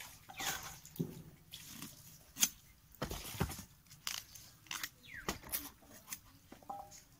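Someone chewing food close to the microphone: irregular crunches and wet mouth clicks, the loudest snap about two and a half seconds in.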